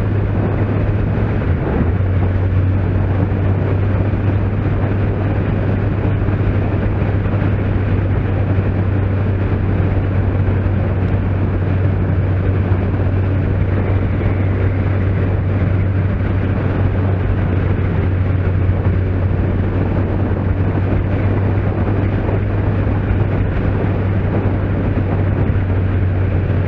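Kawasaki Z750S motorcycle's 748 cc inline-four engine droning steadily at a cruise, under a constant rush of wind and road noise.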